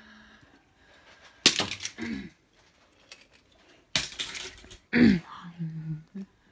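Small die-cast toy cars clattering together in two loud bursts, about a second and a half in and again about four seconds in.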